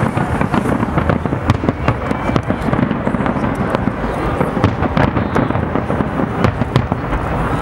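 Fireworks display: a dense, unbroken barrage of bangs and crackling from bursting shells, many reports a second.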